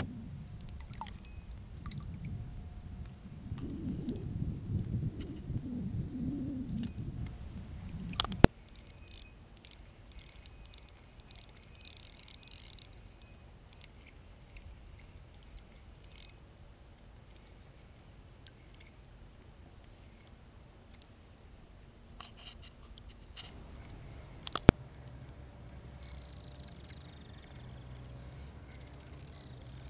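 Wind rumbling on the camera microphone for the first eight seconds or so, then quiet open-water ambience. Two sharp clicks, one about eight seconds in and one about twenty-five seconds in.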